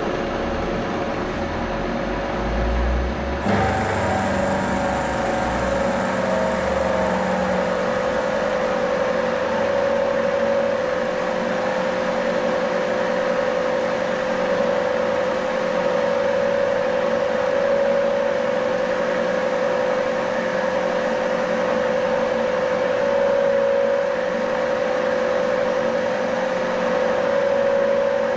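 Vertical milling machine running, its end mill cutting a steel flat bar: a steady machine drone with a strong steady hum-like tone. About three and a half seconds in, the sound changes, losing its low rumble and gaining a thin high whine.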